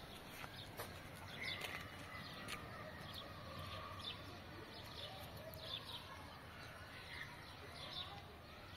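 Faint outdoor ambience with birds chirping: short, quick downward chirps come every second or so, with a few soft clicks.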